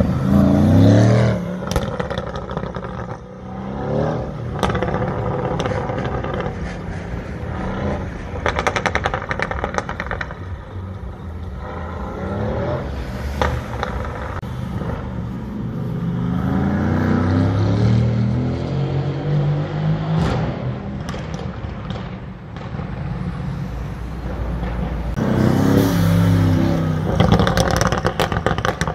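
The Mercedes-AMG GT C Roadster's twin-turbo V8 exhaust accelerates in several pulls, its pitch rising near the start, again in the middle and once more near the end. Rapid crackling and popping comes from the exhaust in between, with another burst near the end, over city traffic noise.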